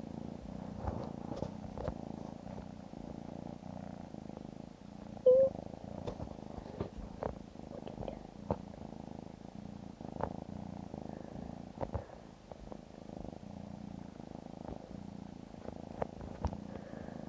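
A kitten purring steadily, with scattered small clicks and one brief, louder pitched sound about five seconds in.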